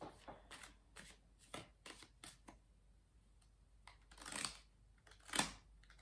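A tarot deck being shuffled by hand: a run of short card slaps in the first couple of seconds, then a longer swish about four seconds in and a sharp snap of cards about five and a half seconds in.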